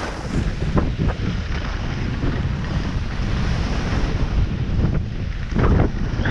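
Wind buffeting the microphone while skiing downhill, a steady low rumble, with short scrapes of ski edges on the groomed snow about a second in and again near the end.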